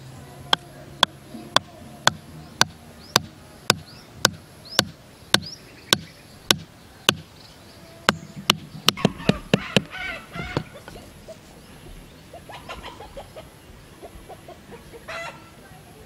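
Sharp wooden knocks of a hatchet's back driving a wooden stake into sandy ground, about two blows a second for some seven seconds, then a quicker flurry of blows around eight to ten seconds in.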